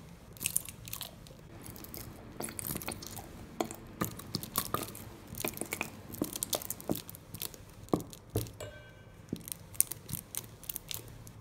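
Plastic UHU Pega Pen liquid glue bottle being squeezed out over a metal bowl: irregular crackling and squelchy clicks as glue and trapped air sputter from the nozzle, with a brief squeak about nine seconds in.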